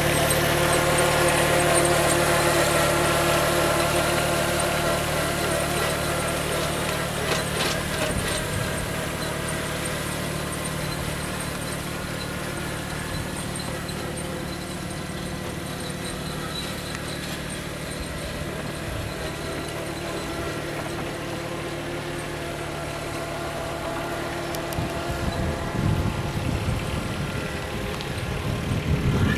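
John Deere 1026R sub-compact tractor's three-cylinder diesel engine running steadily while it pulls an arena groomer through sand. It fades as the tractor drives away and grows louder again near the end as it comes back close.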